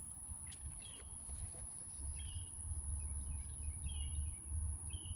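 Outdoor insect ambience: a steady high-pitched insect trill with short chirps repeating every second or so, over an uneven low rumble of wind on the microphone.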